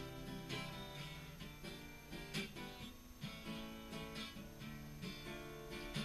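Acoustic guitar played quietly, strummed chords changing every second or so.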